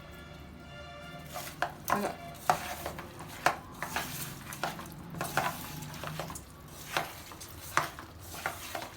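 Hands mixing chicken pieces into a thick masala marinade in a bowl: irregular wet squelches and clicks as the pieces are kneaded together.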